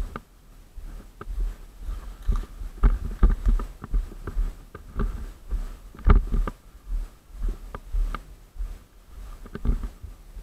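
Irregular footsteps over dry ground and leaf litter, with dry brush rustling and deep handling thumps from the camera mounted on the rifle scope as it is carried along.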